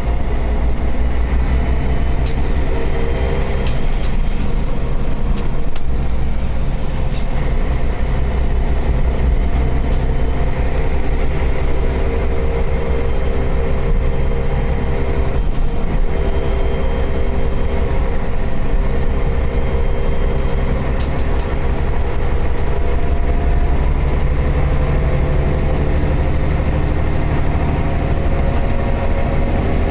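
City bus heard from inside while under way: a steady engine and road rumble whose pitch drifts a little, with occasional light rattles.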